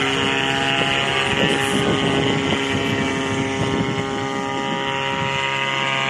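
Paramotor trike's engine and propeller running steadily at an even pitch overhead, with wind gusting on the microphone in the middle.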